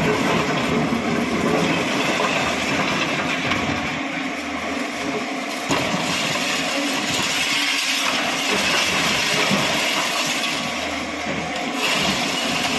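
Bulldozer's diesel engine running under load at a demolition, a steady dense mechanical noise that shifts abruptly twice, about halfway through and near the end.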